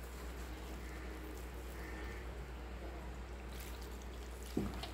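Faint sounds of a hand mixing maida flour and coconut milk into a thick dough in a glass bowl, with coconut milk poured in from a steel cup, over a steady low hum. A short knock near the end.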